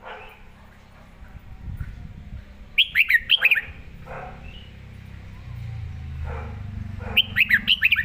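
Red-whiskered bulbul singing two short, loud phrases about four seconds apart, each a quick run of rising and falling whistled notes, over a low background rumble.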